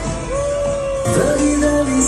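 Loud pop music with a singer holding one long note, then dropping to a lower held note just past the middle.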